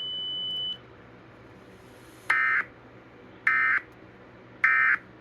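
Emergency Alert System end-of-message data tones: three identical short, buzzy electronic bursts about a second apart, the digital code that closes out the alert. A steady high beep sounds through the first second before them.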